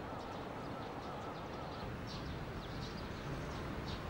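Outdoor ambience: small birds chirping in short, repeated high calls over a steady background noise.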